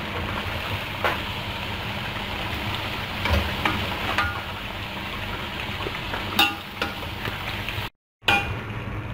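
Chicken pieces sizzling steadily in hot oil in a frying pan, with a few sharp clinks of a spoon against the pan as pieces are lifted out. The sound cuts out briefly near the end.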